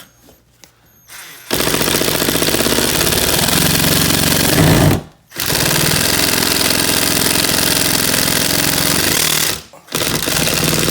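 Power screw driver running screws into a wood support behind the drywall, with a loud rapid rattling in three long runs broken by two short pauses.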